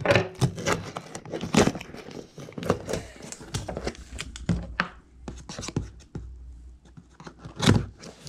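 Packing tape being ripped and peeled off a cardboard box, in a string of irregular tearing and scratching noises, the loudest near the end.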